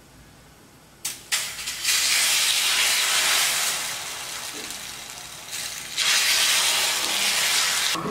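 Egg-and-onion omelette batter sizzling as it is ladled onto a hot griddle: a couple of ladle clicks about a second in, then a loud sizzle that fades, and a second loud burst of sizzling about six seconds in as more batter goes on.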